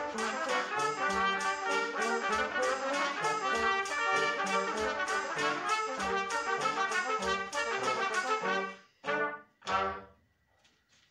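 Small brass ensemble of trumpets, flugelhorn and a lower bell-up horn playing chords together in a steady rhythm. Near the end the piece closes with two short final chords, then stops.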